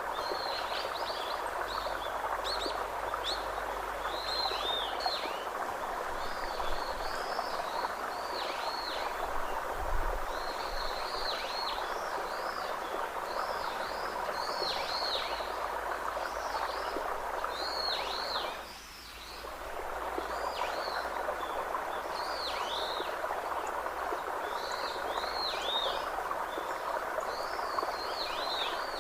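Outdoor nature ambience: a steady, even background hiss with short chirping calls repeating about once a second. The background drops away briefly about two-thirds of the way through.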